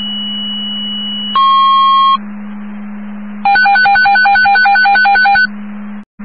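Fire dispatch alert tones heard over a radio scanner, sounding ahead of a dispatch call. A long steady high tone switches to a short lower tone about a second and a half in. After a pause a pulsing alert tone, about five beeps a second, runs for some two seconds. A steady low hum sits under it all.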